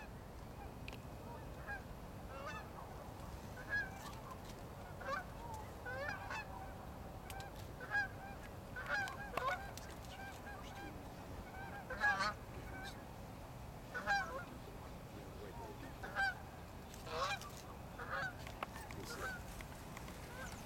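Geese honking: short honks that come every second or two, some in quick pairs, over a steady low background noise.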